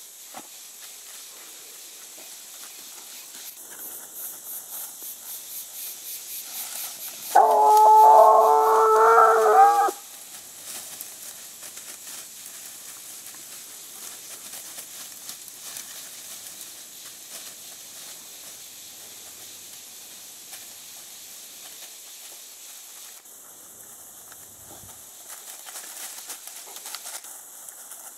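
American foxhound baying once, a single long drawn-out call of about two and a half seconds, about seven seconds in, given while working a scent on the ground. Before it come quick rhythmic sniffs, and faint rustling in dry leaf litter runs under the rest.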